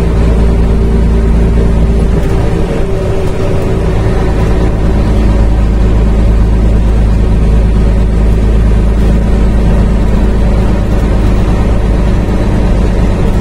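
Old Scania truck's diesel engine running steadily at road speed, heard from inside the cab as a deep, even drone mixed with road noise.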